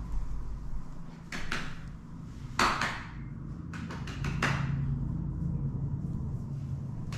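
A man clapping his hands to call a puppy to him: two claps, then a louder one, then a quick run of about five. The claps ring briefly in a room with a tiled floor and stone walls.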